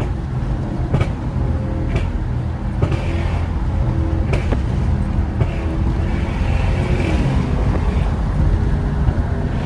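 Lexus GS430's 4.3-litre V8 running under way with its catalytic converters removed, a steady exhaust drone with a few sharp knocks in the first few seconds.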